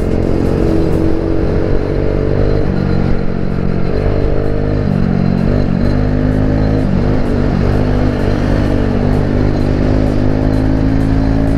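Single-cylinder TVS Ntorq 125 scooter with an aftermarket Akrapovic exhaust running steadily under acceleration, with wind rush, mixed with background music.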